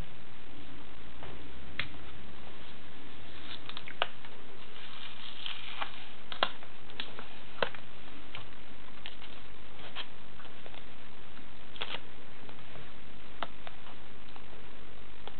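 Fingers handling a small plastic handheld device while peeling and pressing on an adhesive sticker label: scattered soft crackles and a few sharper clicks, over a steady hiss.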